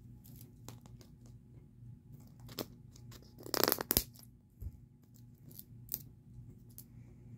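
Fingers handling and picking at a hard plastic surprise-ball capsule while trying to pry it open: scattered light clicks and taps, with a short burst of crackling plastic about three and a half seconds in that ends in a sharp click.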